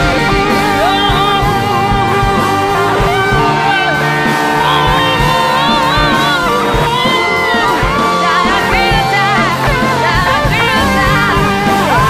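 Background music: a song with a melodic voice line over guitar and a steady band accompaniment.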